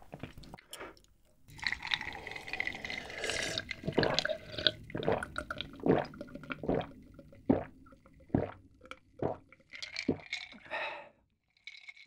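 A person drinking an iced drink from a glass mug in big gulps, roughly one a second, with ice clinking and liquid sloshing in the glass.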